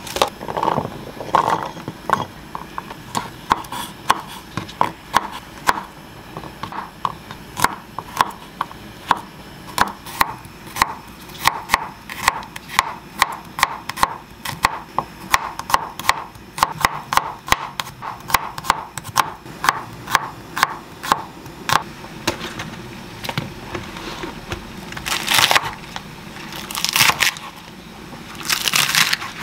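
Kitchen knife slicing garlic cloves and then chopping thick green onions on a wooden cutting board: a long run of quick, fairly regular knocks of the blade against the board, with a few short noisy sounds near the end.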